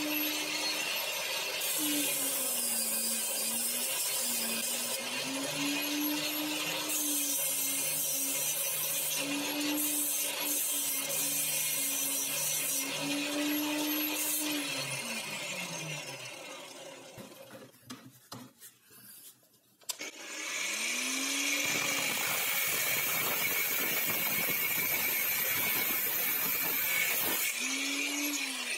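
Electric angle grinder running with an abrasive disc while a steel rod is pressed against the wheel; the motor's pitch sags and recovers several times under the load, over a grinding hiss. About two-thirds of the way through it is switched off and winds down to a short lull, then it is started again and runs steadily.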